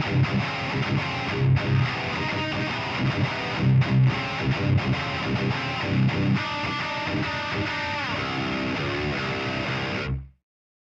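Heavily distorted electric guitar playing a metal riff: rhythmic low chugs, then held and sliding notes, cutting off abruptly about ten seconds in. A Harley Benton guitar with a prototype 22k high-output Alnico 8 pickup, played through a Lichtlaerm Audio Prometheus amp boosted by a TDS Effects Sekhmet Overdrive.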